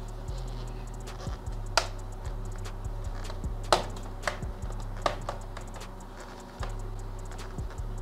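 Plastic snap clips of an ASUS VivoBook 15 X1502ZA laptop's bottom cover popping loose as a plastic card is levered along the side seam: about five sharp clicks, the loudest two near two and four seconds in.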